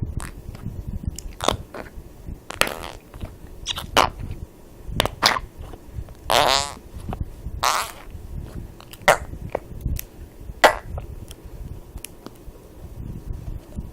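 A series of fart sounds: about a dozen short, sharp ones at irregular intervals, and one longer one with a wavering pitch about six and a half seconds in.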